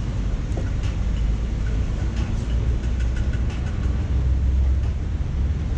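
Wind buffeting the microphone: a steady low rumble that rises and falls unevenly, with a few faint clicks.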